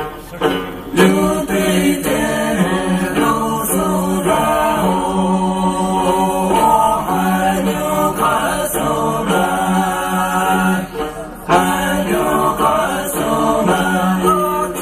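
Music with choir-like group singing in long held notes.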